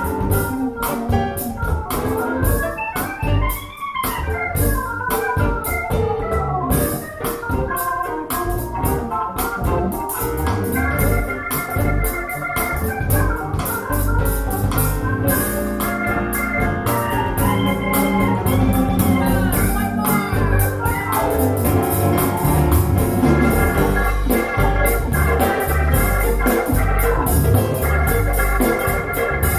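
Music played back through Bowers & Wilkins 707 S2 bookshelf speakers: an organ-like keyboard track with sustained chords over a steady beat and strong bass.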